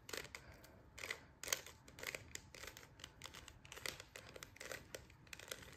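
Plastic 3x3 Rubik's cube turned quickly by hand: a run of faint, irregular clicks and scrapes as its layers turn through the algorithm that inserts a second-layer edge piece to the right.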